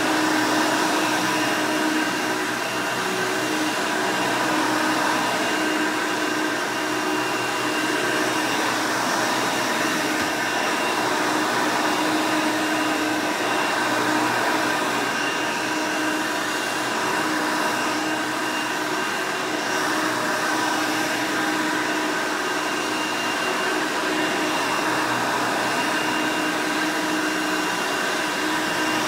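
Hoover Elite 200 (U4467) upright vacuum running steadily: its 5-amp direct-air motor gives a loud, even rush of air with several steady whining tones on top.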